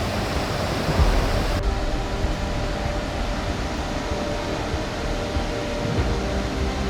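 Steady rushing noise with low gusty thumps on the microphone, about a second in and again near the end.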